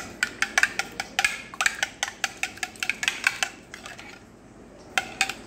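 A fork beating eggs and milk in a ceramic bowl, clinking against the bowl in quick taps about five a second. The tapping stops after about three and a half seconds, with two more taps near the end.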